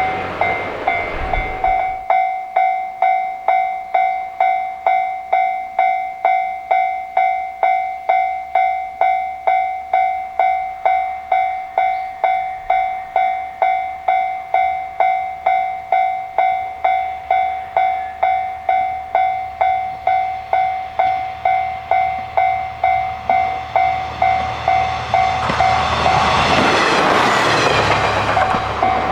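Japanese level-crossing alarm ringing its electronic bell about twice a second. A low rumble fades out in the first two seconds, and near the end a train passes with a swelling rush of wheel and running noise over the bell.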